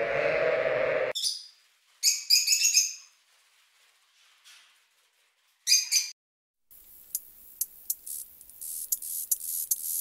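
A drawn-out bleat cuts off about a second in. Then a Fischer's lovebird gives short, high chirps in three bursts. From about two-thirds through, dry scratching clicks and hiss set in.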